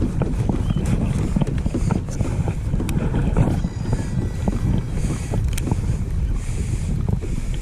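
Wind buffeting the microphone, a loud, uneven low rumble throughout, with a few faint clicks and taps over it.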